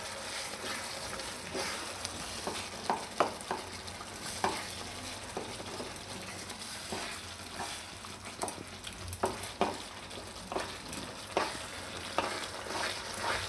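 A slotted spatula stirring a thick methi-and-gram-flour mixture in a non-stick kadai. Irregular soft scrapes and knocks of the spatula against the pan sound over a steady hiss of the cooking food.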